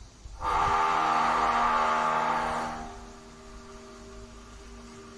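Construction-site machinery: a steady machine hum, with a loud, harsh mechanical noise that starts about half a second in and fades out after about two seconds.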